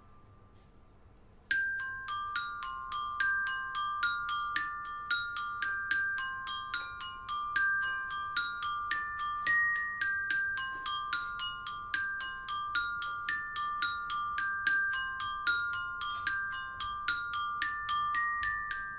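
Glockenspiel struck with mallets, coming in about a second and a half in and playing a repeating melodic figure of bright ringing single notes, about three a second.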